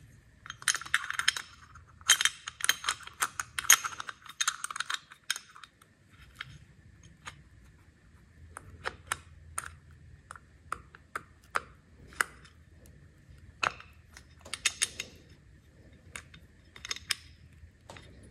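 Parts of a Hilti reciprocating saw clicking and clinking as they are handled and fitted back together by hand during reassembly: a quick run of clinks in the first five seconds, then scattered single clicks and taps.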